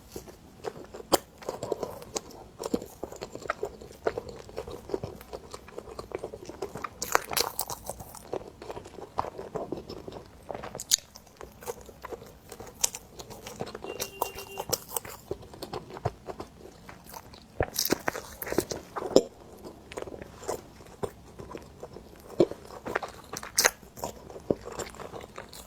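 Close-miked eating of cream bread: bites and chewing with irregular soft crunches and sharp mouth clicks.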